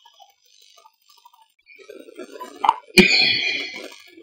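Heavily amplified, noise-filtered ear-microphone recording with faint scattered crackle. Near the end comes a sharp click, then a ringing, fading tone over a low garbled murmur, lasting about a second and a half; the recordist hears it as a voice saying "Missy".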